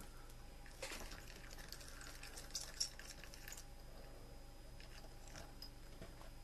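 Quiet handling sounds: a light tap as a dropper is set down, then a few seconds of faint clicks and scrapes with one sharper tick, as fingers work a string and a wire needle in a ceramic egg cup.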